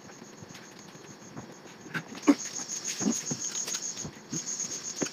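Crickets chirping in a high, rapid, evenly pulsed trill that grows louder about two seconds in. Over it come a few sharp clinks and scrapes of spoons on steel plates as food is dished out.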